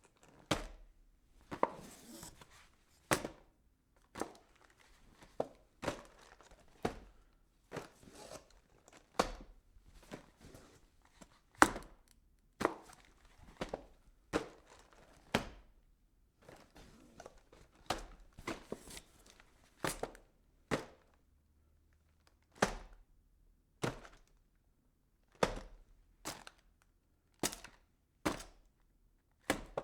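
Cardboard boxes being packed and handled: a long irregular series of sharp knocks and thunks, roughly one a second, with cardboard rustling and scraping between them, mostly in the first half.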